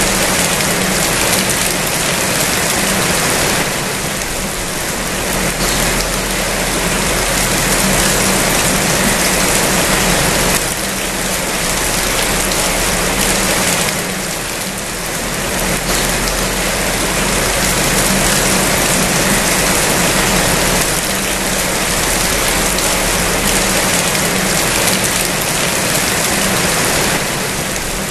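Steady rain falling: a dense, even hiss of drops on surfaces that ebbs slightly now and then.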